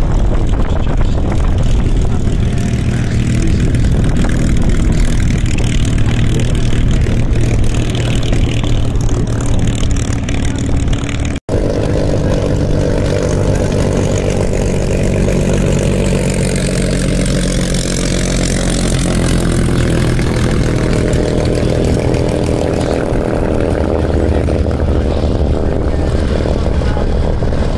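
Piston engine of a WW2-era propeller aircraft running steadily, with a sudden break in the sound about eleven seconds in.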